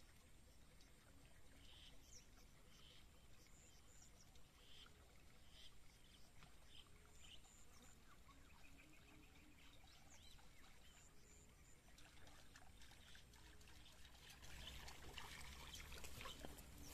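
Near silence: faint outdoor ambience with light trickling water and scattered short chirps. Small clicks and rustling grow a little louder near the end.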